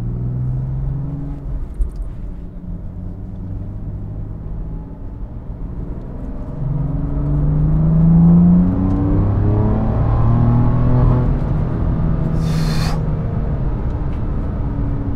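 BMW M3 F80's twin-turbo straight-six, with its exhaust flaps open and an aftermarket midpipe, heard from inside the cabin: running at low revs, then pulling harder and rising in pitch about seven seconds in before holding a steady drone. A short hiss about twelve seconds in.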